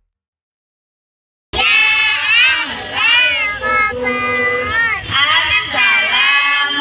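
Silent for about a second and a half, then a group of children sing together, with women's voices among them.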